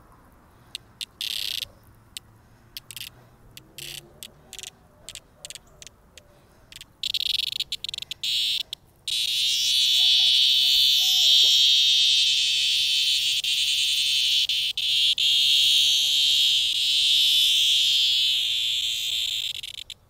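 Periodical cicada buzzing while held in the hand, the protest buzz of a handled cicada. A string of short buzzes over the first several seconds, then from about nine seconds in one loud unbroken buzz that cuts off just before the end.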